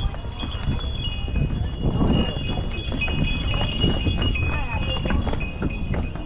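Bells on a passing string of donkeys jingling and ringing at several pitches at once, with the knock of hooves on stone steps.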